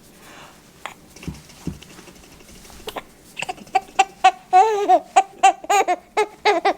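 A small child's voice: a rapid run of short, high, wavering squeals or giggles, beginning about three seconds in and growing louder.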